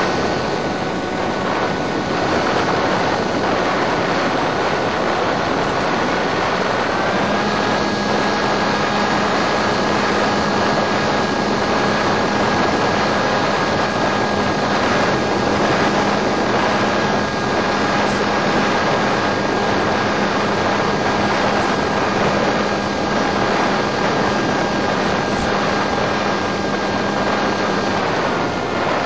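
Electric motor and pusher propeller of a Multiplex EasyStar model plane running at steady power under a rush of wind noise. The whine steps up a little in pitch about seven seconds in and drops back near the end as the throttle is eased.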